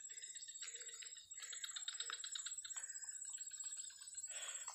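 Faint chorus of insects and birds: a steady high buzz with scattered short chirps and clicks.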